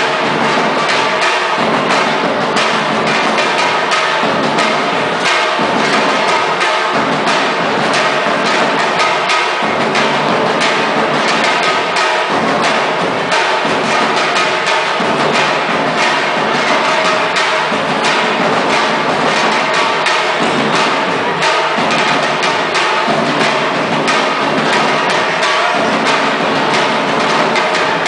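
Batucada drum group playing a loud, steady, driving rhythm on large strapped bass drums and other hand-held drums, the strikes packed close together without a break.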